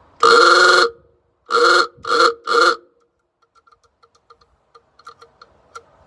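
Old electric horn sounding on a bench test: one honk of about half a second, then three short honks, then only faint stuttering clicks and buzzes as it catches and fails to sound. The owner thinks it keeps getting caught and suspects the contact points or a poor connection.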